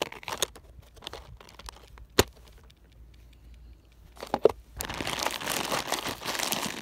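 Handling and loading a SCCY CPX-2 9mm pistol: a few sharp clicks, the loudest about two seconds in and a quick pair about four and a half seconds in, then a continuous crinkling, rustling noise for the last two seconds.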